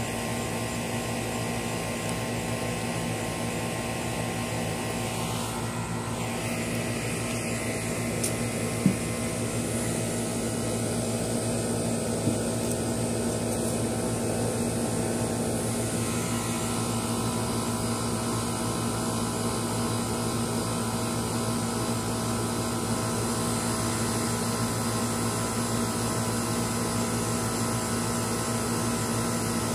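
Steady mechanical hum: a constant low drone with a higher hiss over it, unchanging throughout, with a couple of brief faint clicks about nine and twelve seconds in.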